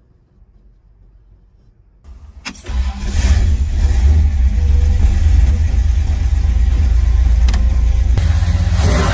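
Classic second-generation Ford Bronco's engine turning over about two seconds in, catching quickly, then idling with a loud, deep, steady rumble.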